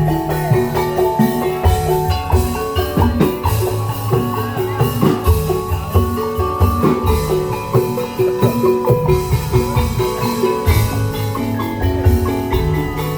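Tongklek music: a percussion ensemble of pitched bamboo instruments playing quick melodic notes over drums keeping a steady beat.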